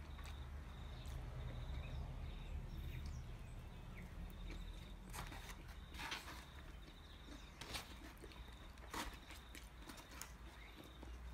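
Metal cutlery clicking and scraping in a polystyrene foam takeaway box while food is cut and forked up, with a few sharp clicks in the second half. Behind it a steady low rumble and a faint, high, rapidly pulsing chirp repeat throughout.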